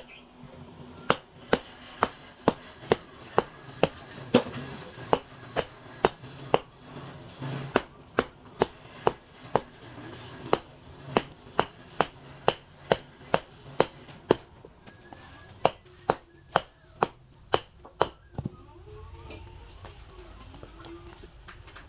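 Claw hammer striking the bark of a short log over and over, about two blows a second, to loosen the bark so it can be peeled from the wood. The blows stop near the end.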